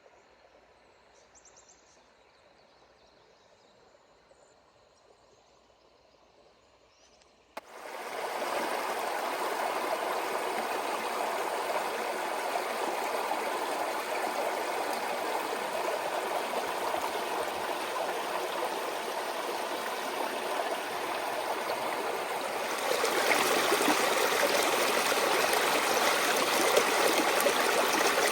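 Near silence for the first seven seconds or so, then flowing river water starts suddenly: a steady, even rush of running water. It gets louder about 23 seconds in.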